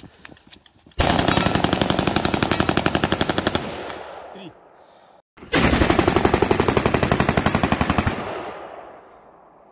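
Assault rifle firing on full automatic: two long bursts of rapid shots, each lasting about two and a half to three seconds and fading out in an echo. The second burst comes after a short break about five seconds in.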